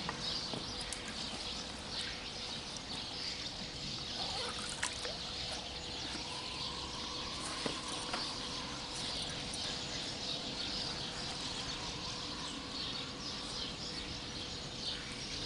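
Light trickling and sloshing of river water around a fish release bag dipped at the water's edge, over a steady outdoor hiss.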